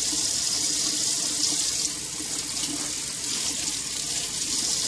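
Kitchen faucet running steadily into a stainless steel sink, a constant hiss of falling water.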